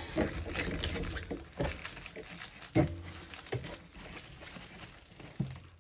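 A diamond painting canvas and its protective film rustling as hands roll it against a tabletop, with a few soft knocks, the loudest near the middle. The rolling is done to make the canvas lay flat, and the sound grows fainter toward the end.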